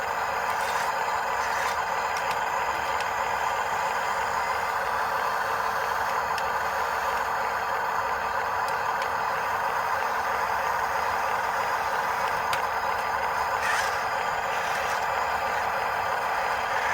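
Electric motor and plastic gearbox of a remote-control construction model, whirring steadily with a few light clicks.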